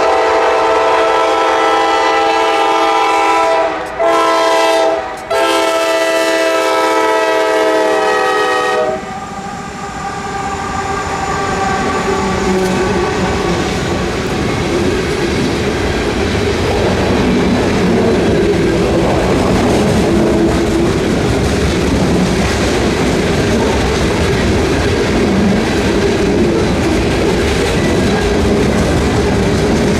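Multi-chime horn of a CSX freight diesel locomotive sounding three blasts, two short breaks about four and five seconds in, the last blast cutting off about nine seconds in. Then the freight train rolls past with a steady rumble and the clickety-clack of wheels over the rail joints.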